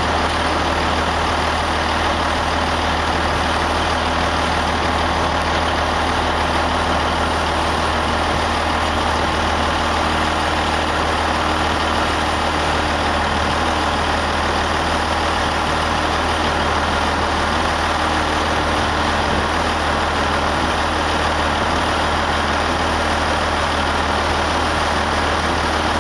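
Heavy-haul truck's diesel engine running steadily at low speed, heard from inside the cab: a constant low drone with slight shifts in pitch.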